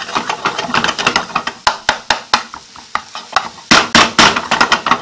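A metal utensil rapidly scraping and clicking against a non-stick frying pan as egg and chicken curry are stirred, with food frying on high heat underneath. The clatter is densest and loudest about four seconds in.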